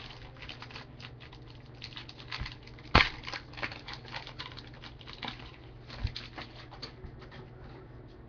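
Trading cards and their packaging being handled: light rustling and scratching with small clicks, and one sharp tap about three seconds in.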